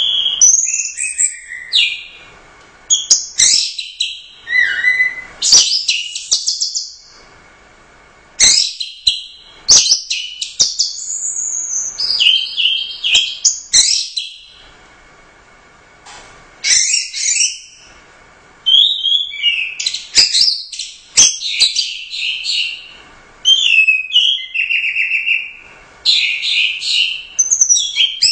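Orange-headed thrush singing a loud, varied song of quick whistles and chattering notes, in bursts of a few seconds with short pauses between them.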